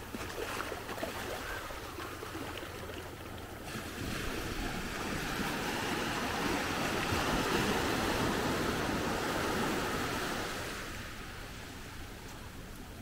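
Small waves breaking and washing up over the sand in shallow surf. The rush of water swells about four seconds in and eases off near the end.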